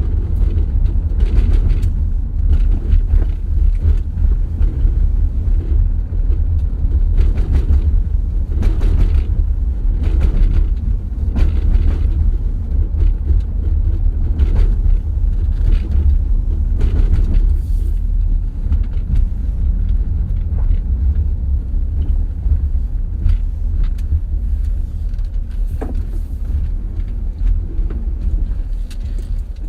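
Car driving over a bumpy road, heard with a steady low rumble of tyres and running gear, broken by frequent short knocks and rattles as the wheels hit bumps.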